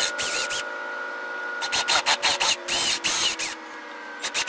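Cordless drill enlarging pilot holes in an MDF speaker cabinet with a roughly half-inch bit: a steady motor whine, with three bursts of harsh noise as the bit cuts into the wood.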